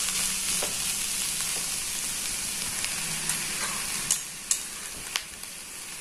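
Shredded cabbage, capsicum and chicken sizzling in a frying pan as they are stirred with a wooden spatula. The sizzle quietens about four seconds in, and a few sharp taps follow.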